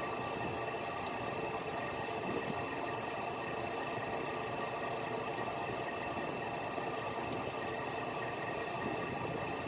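A fishing boat's engine running steadily: a continuous drone with a few constant higher tones over it.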